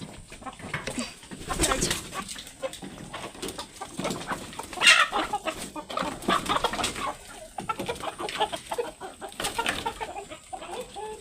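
Chickens clucking, mixed with scattered knocks and rustles, the loudest about five seconds in.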